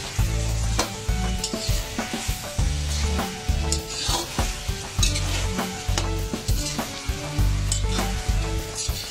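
A utensil stirring and scraping through chicken and vegetables in a sizzling frying pan, with repeated scrapes over the steady hiss of the frying. Background music with low bass notes plays underneath.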